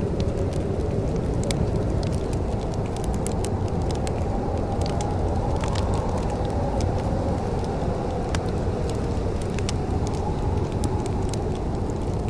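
Wood fire crackling, with many small sharp pops scattered at irregular intervals over a steady low rumble.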